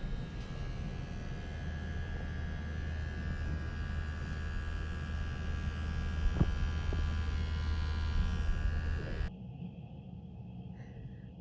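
Small vibrating motor buzzing steadily, with one light knock about six seconds in; the buzz cuts off suddenly about nine seconds in, leaving a faint hum.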